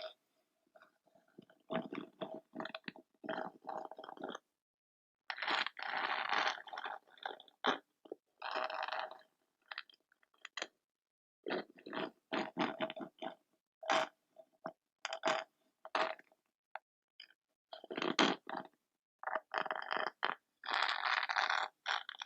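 Crackling and crunching in irregular bursts, each from a fraction of a second to about two seconds long, with silent gaps between them.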